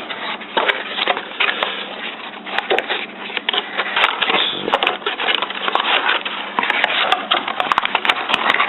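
Packaging being handled: a dense run of crackling and small clicks.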